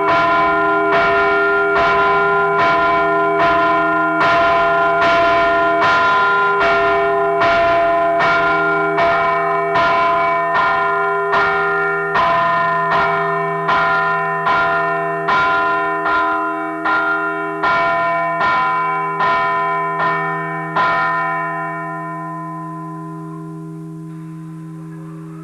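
Tropea Cathedral's church bell ringing close up in the belfry, in even strokes of about three every two seconds, each stroke leaving a long ringing hum. The strokes stop about 21 seconds in and the hum slowly dies away.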